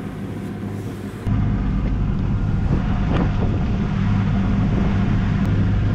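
Sailboat's inboard engine running steadily under way, a low even hum, with wind on the microphone and water rushing along the hull. It gets louder about a second in.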